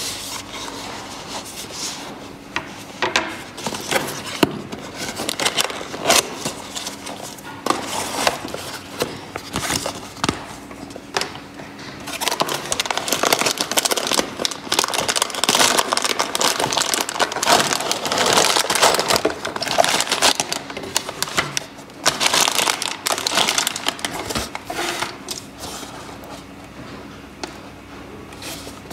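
Hand-crafting noises from materials being worked by hand: a dense, irregular run of clicks, scrapes and crinkling, busiest in the middle stretch.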